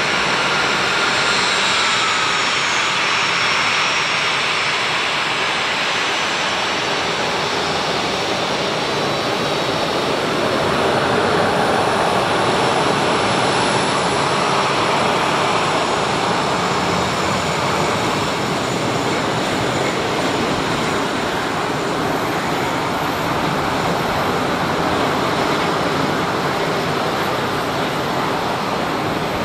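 Boeing 737-400's CFM56-3 turbofan engines running at taxi power as the airliner taxis past and away: a steady jet noise with a high whine that slides down in pitch in the first couple of seconds, loudest about halfway through as the aircraft is side-on.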